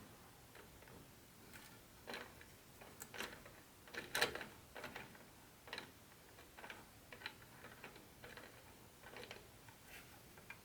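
Irregular light clicks and taps of small HO-scale model train parts and track pieces being handled, with the loudest cluster about four seconds in.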